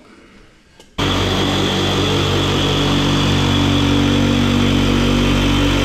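Jigsaw starting up about a second in and running steadily as its blade cuts through an interlocking rubber floor mat.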